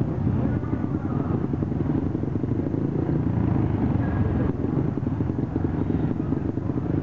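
Grass track racing motorcycle engines running steadily.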